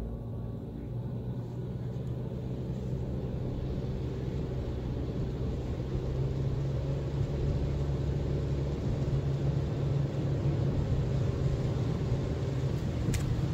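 Car engine hum and tyre hiss on a wet road, heard from inside the car, growing gradually louder as the car pulls away and gains speed. A few light ticks near the end.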